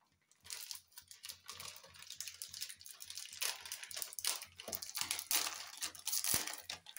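Dense crinkling and rapid clicking as dry boondi is handled and tipped into a steel pan of hot water.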